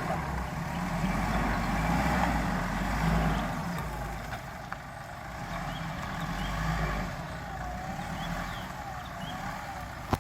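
An off-road 4x4's engine runs under load in the mud, louder for the first four seconds and then easing off. A faint wavering whine comes in near the end.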